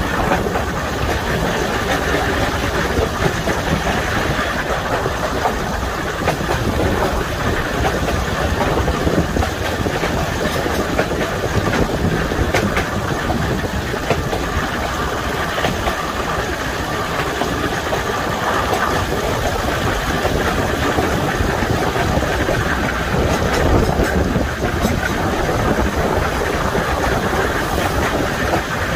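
Diesel multiple unit's diesel engine running steadily.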